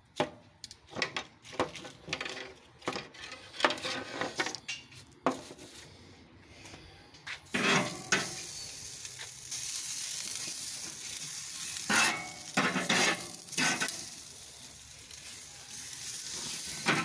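Metal tongs clicking and knocking on a charcoal grill's grate, then Wagyu steaks sizzling steadily on the hot grate from about seven seconds in, with more tong clacks as further steaks go down.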